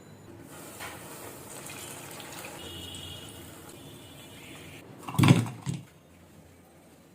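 Water running steadily from a tap for about four seconds, then two loud knocks in quick succession.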